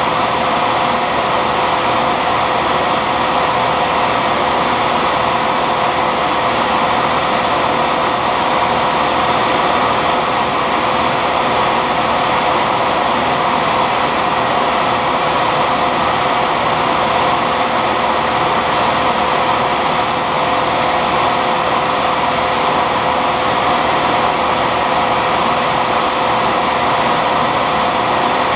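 Shopsmith combination machine running as a lathe: a steady motor whine with several fixed tones over a broad hum, as a graphite rod is turned in its chuck and shaped with a hand-held tool.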